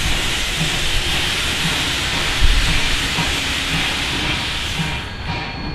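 0-4-0 tank steam locomotive Flagg Coal #75 starting off with its cylinder cocks open: a loud, steady hiss of steam with low exhaust thumps under it. About five seconds in the hiss drops away, leaving a regular beat of about three strokes a second as the engine moves off.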